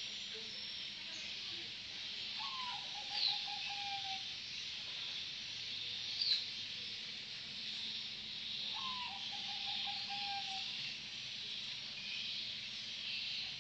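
Zebra dove (merbok) giving its trilling coo twice, several seconds apart: each call is a short upward note followed by a longer, vibrating, stuttering phrase that sinks slightly in pitch. A steady high hiss runs underneath, with two brief sharp chirps.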